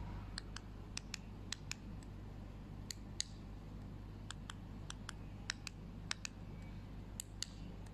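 Clicking of an e-bike display's handlebar button pad: short presses of its plastic plus and minus keys, about two clicks a second at an uneven pace, as password digits are stepped through.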